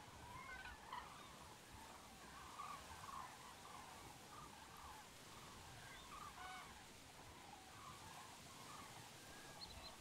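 Faint bird calls: short, arched, honk-like notes in little clusters about half a second, three seconds and six seconds in, over a soft outdoor hiss.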